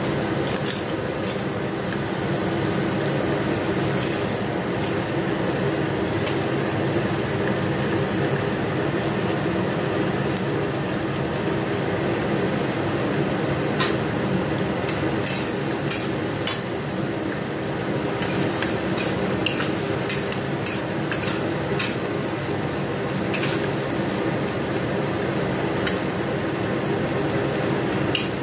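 Sliced bell peppers and mushrooms sizzling steadily in a steel wok over a gas flame. From about halfway in, a metal spatula clinks and scrapes against the wok now and then as the vegetables are stirred.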